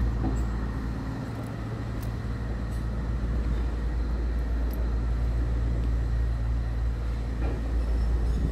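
Scania P vacuum tanker truck's diesel engine idling steadily, a low even hum.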